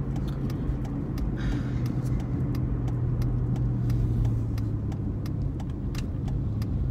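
Car interior while driving: a steady low drone of engine and road noise, with faint scattered small ticks and rattles.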